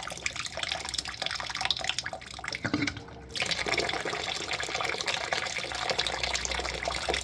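Hot water running out of a steam boiler's drain valve as the boiler is drained of dirty water. The flow briefly drops off about three seconds in, then resumes steadily.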